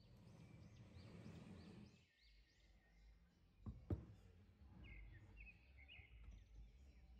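A wooden serving board with glass dessert cups scraping across a wooden table for about two seconds, then two sharp knocks just before four seconds in as it is handled. Faint bird chirps sound in the background.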